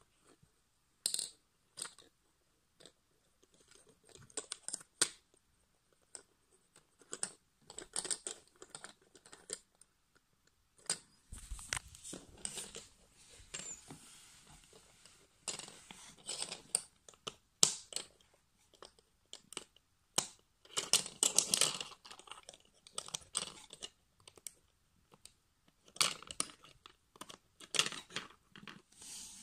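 A Lego Technic differential's plastic bevel gears and parts clicking and rattling as the model is handled and turned by hand, in irregular bursts of small clicks.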